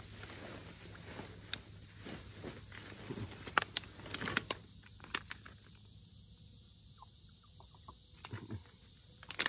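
Steady high-pitched insect drone, with scattered crackles and rustles, most in the first half and again near the end.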